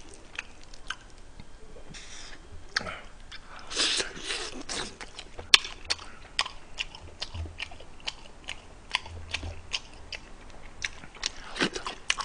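Close-miked biting and chewing of spicy sauced fried chicken, with many sharp crackling clicks. The crunching is densest about four seconds in.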